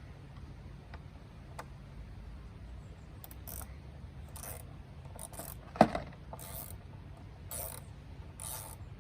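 Hand tool ratcheting in short rasping strokes, roughly one a second, as the Torx screws holding the engine computer over the air filter are tightened. One sharp knock a little past halfway.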